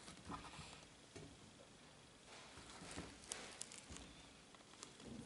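Near silence with faint, scattered taps and rustles of hands handling leather high-top sneakers and their paper hang tag.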